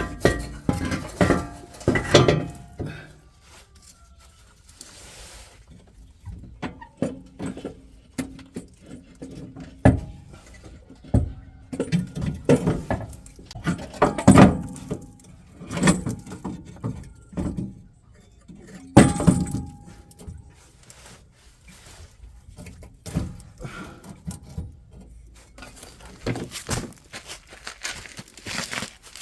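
Hand tools and metal parts clinking and knocking in an irregular series of clanks and thunks, with quiet gaps between. One sharp metallic strike about two-thirds of the way through rings briefly.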